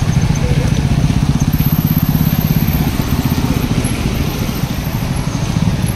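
A motor vehicle's engine running close by: a steady, loud low rumble with rapid, even pulses.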